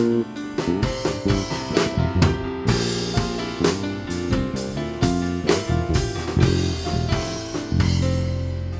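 Live worship band playing an instrumental passage with drum kit and guitar, with frequent drum hits and chord changes. About three-quarters of the way in it settles on a held chord that fades.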